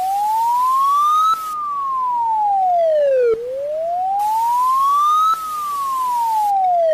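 Warning siren wailing: a single tone rising in pitch for about two seconds, then falling for about two, twice over.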